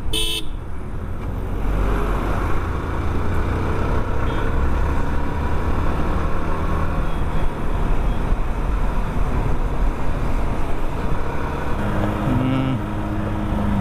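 Yamaha R15 v2 motorcycle under way: its single-cylinder engine running steadily, mixed with a constant low wind rumble on the rider's microphone. A steadier engine hum stands out more clearly near the end.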